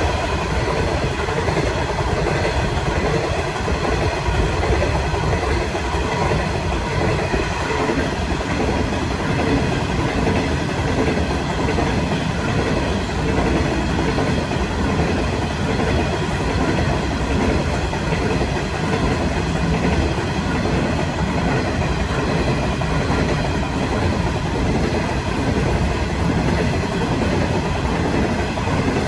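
Coal train of loaded-type hopper wagons rolling past: a steady, continuous rumble of steel wheels on the rails.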